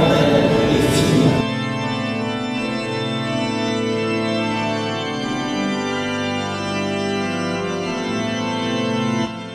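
Organ music playing sustained chords, starting abruptly after a loud noisy opening of about a second and a half, and dropping off near the end.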